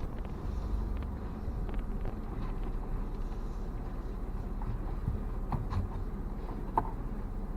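Low, steady rumble of a car running at low speed, with a few faint short sounds late on and one brief sharp sound near the end.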